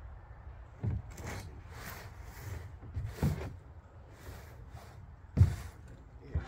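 Shovel blade jabbed into soil and pine straw around the edge of a plastic pond tub: a series of short scrapes and thuds, the loudest about five and a half seconds in.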